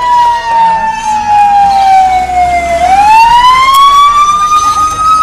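Siren wailing slowly and loudly: its pitch falls steadily for nearly three seconds, then rises again.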